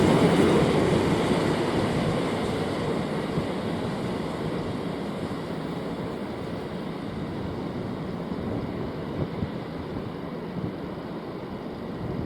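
A passing train fading into the distance: its noise dies away over the first few seconds, leaving steady background noise.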